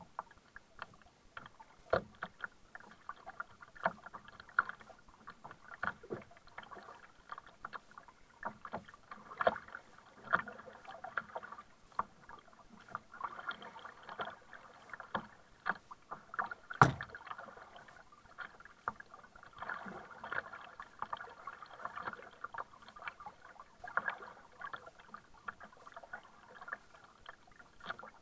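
Kayak paddling: a double-bladed paddle dipping and splashing into the water stroke after stroke, with water dripping and slapping against the plastic hull. Stronger splashes come about every two seconds, and one louder knock sounds past the middle.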